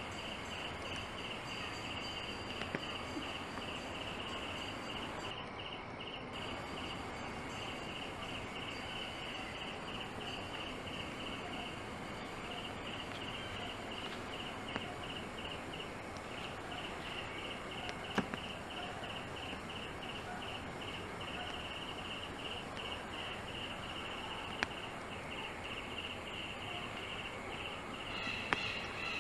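Insects chirping in a regular, even pulse train, several chirps a second, over a steady outdoor background hiss, with a few faint clicks. Another animal call starts right at the end.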